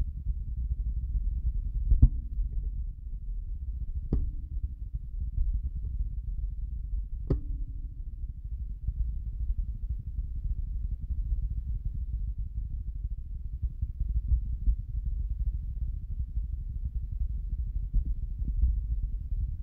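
A steady low rumble, with three short clicks about two, four and seven seconds in.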